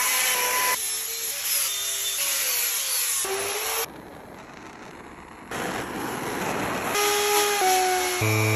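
Carving tools in quick succession: a chainsaw cutting wood, then the quieter hiss of a handheld torch, then an electric drill running, its pitch stepping as its speed changes near the end.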